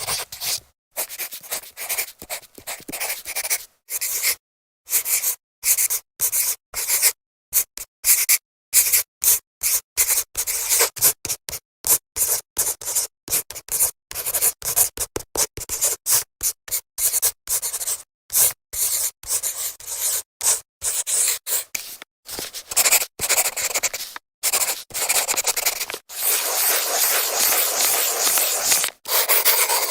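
Marker scraping across a whiteboard in many short drawing strokes, each cut off abruptly, then one longer unbroken stroke over the last few seconds.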